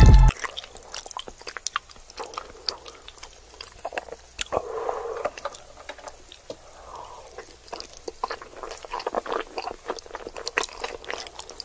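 Close-miked chewing of a mouthful of cheesy macaroni and cheese, with many short, wet, sticky clicks and smacks of the mouth.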